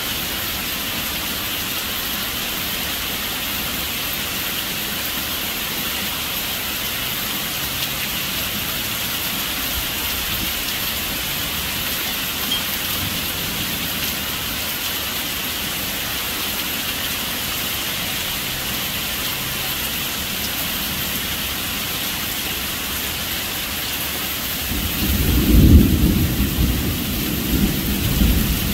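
Heavy, steady rain falling through leafy trees. About 25 seconds in, thunder comes in as a loud, low rumble that keeps rolling to the end.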